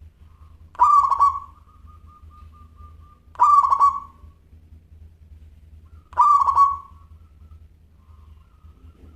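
Zebra dove (perkutut) cooing: three short, rolling coos about two and a half seconds apart, the first trailing into a fainter, even trill.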